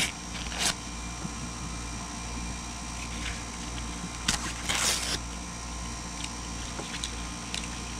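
Foil wrapper of a Panini NBA sticker-and-card pack crinkling in gloved hands: scattered crackles and one short crinkling burst about five seconds in, over a steady low hum.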